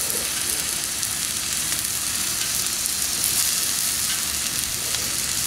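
Steak sizzling steadily on a gas flat-top griddle with the burners on low, a fine frying hiss with faint crackles as the crust slowly builds.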